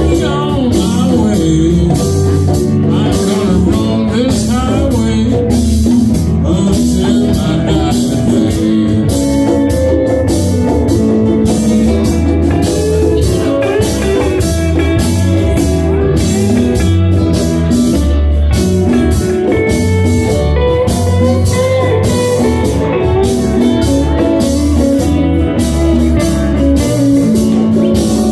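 Live band playing with electric guitars, bass and drum kit, keeping a steady beat.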